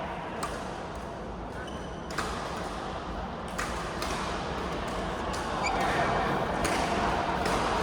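A murmur of voices in a large hall, broken by four separate sharp thuds spaced a second or more apart, like a ball bouncing on a court floor.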